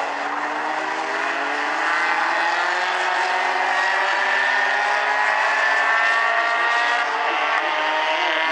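A pack of Bumblebee-class four-cylinder compact race cars running together, many engines heard at once, their pitches climbing as they accelerate.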